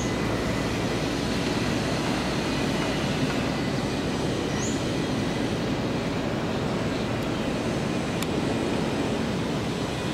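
KAI Commuter electric commuter train running past the platform at close range: a steady rumble of traction motors and wheels on rail. Two brief high chirps cut in, one at the start and one about four and a half seconds in.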